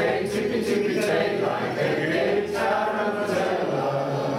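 A group of people singing a song together in unison, a sing-along of untrained voices.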